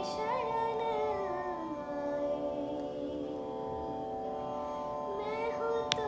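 A girl singing a slow, soft Hindi song over sustained accompaniment chords, her voice pausing in the middle while the chords hold. A sharp click near the end.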